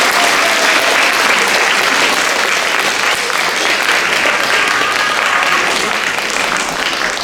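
Audience applauding steadily, easing off slightly near the end, with a few faint voices mixed in.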